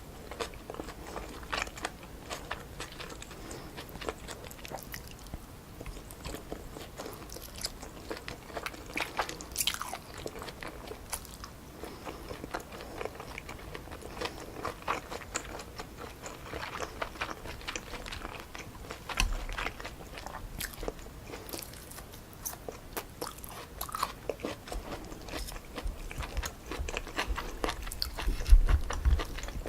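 Chewing of stir-fried wide glass noodles with pork neck and vegetables, picked up close: many short mouth clicks and smacks throughout, with a few low bumps, the loudest near the end.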